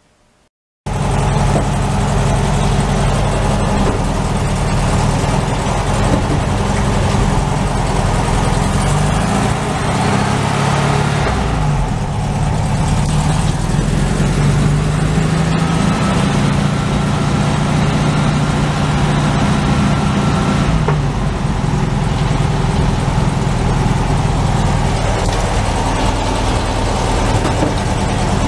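1964 VW Beetle's 1500cc air-cooled flat-four engine running as the car drives, starting suddenly about a second in, with the engine note rising and falling a few times with throttle and gear changes over steady road noise.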